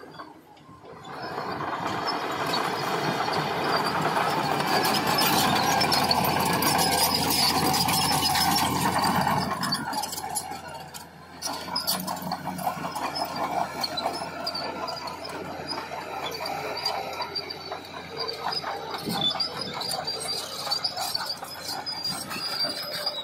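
Heavy tracked earthmoving machine working, its engine running and its steel tracks squealing and rattling. It is loudest for the first several seconds, dips briefly, then carries on a little quieter.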